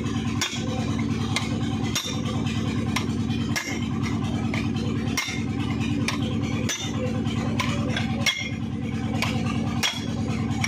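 Steel gearbox parts and hand tools clinking and tapping as a bearing is worked on a tractor gearbox shaft, over a steady low engine-like hum that dips briefly about every second and a half.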